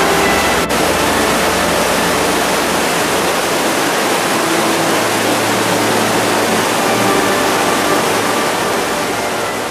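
Steady, loud rush of the torrent and waterfalls in a narrow Alpine rock gorge, the Großarler Ache pouring through the Liechtensteinklamm.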